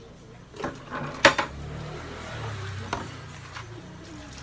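Several sharp knocks and clatters of things being handled in a washing basin, the loudest about a second in, with a short rush of water-like noise between them.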